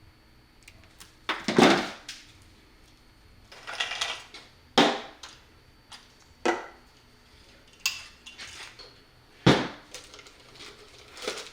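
Metal tools and lamp fittings being handled and set down on a workbench: about half a dozen separate clinks and clatters a second or two apart.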